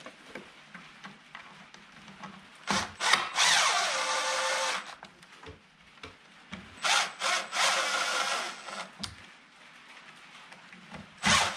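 Milwaukee M18 cordless impact driver running in two spurts of about two seconds each, driving the mounting screws that fix an outlet into a plastic electrical box. The motor's pitch falls through the first spurt, and there are small handling clicks between the spurts.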